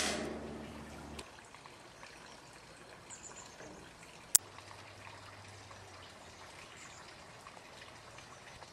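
Faint steady outdoor hiss. Right at the start, beer cans are set down on a metal patio table, a short sound that fades within a second. About four seconds in there is a single sharp click.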